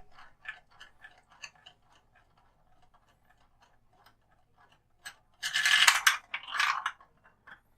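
A marble rolling and clicking through a marble run built from plastic toy bricks: a quick run of small clicks that thins out, then a louder rattling clatter past the middle, followed by a few last clicks.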